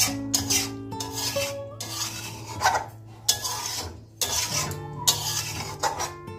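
Flat metal spatula scraping and stirring a thick fish curry in a metal kadai, in irregular strokes about every half second to a second, over soft background music.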